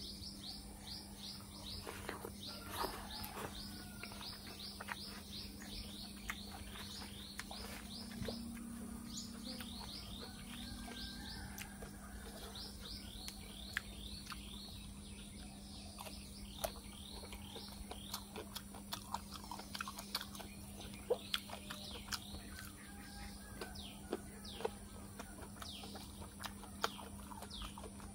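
Birds chirping in long runs of short, quickly repeated falling notes, with brief pauses between runs. Scattered soft clicks and smacks of eating with the fingers sound over it.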